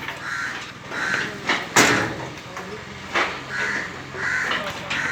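Crows cawing, several short separate caws spread out, with a couple of sharp knocks in between.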